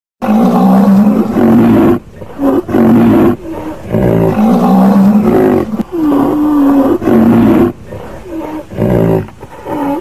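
Loud roaring calls from a large animal, repeated over and over. Long drawn-out calls of a second or two alternate with shorter ones.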